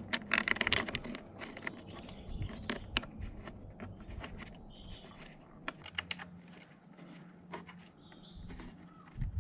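Small clicks and taps of hands handling a metal fastener and bracket under a motorcycle's rear subframe, with a few faint bird chirps in the background.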